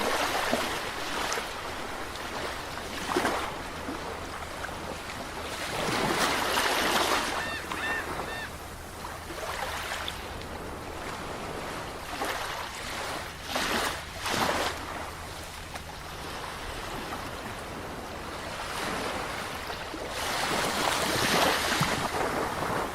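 Ocean surf: waves break and wash in, each one a hiss that swells and fades, with the biggest surges about 6 seconds in and near the end.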